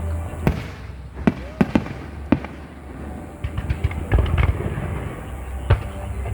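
Aerial fireworks going off: a string of sharp bangs and crackles, with a rapid cluster of pops about two-thirds of the way through and one loud bang near the end.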